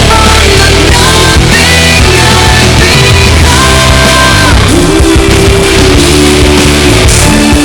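Loud rock music with distorted guitars and singing.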